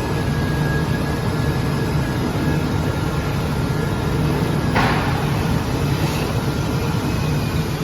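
CNC cutting machine running a trial V-knife cut: a steady mechanical hum, with a brief hissing scrape about five seconds in.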